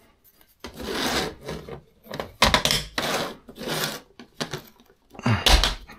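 3D-printed PLA frame pieces being handled on a hard floor: a series of scrapes, clicks and knocks as the parts slide together and are pressed into place, with a dull thump near the end.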